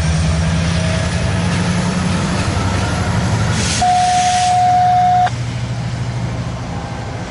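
Belt Railway of Chicago GP23ECO diesel locomotive running steadily as it pulls a cut of flatcars past. A short hiss of air comes about three and a half seconds in, overlapped by a single steady high tone held for about a second and a half that cuts off abruptly.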